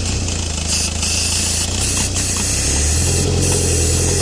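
Aerosol spray hissing in short blasts around a boost hose under the van, over the 1.9 TDi diesel engine idling. About three seconds in, the engine note rises as the revs come up: the engine is drawing in the spray through a boost leak.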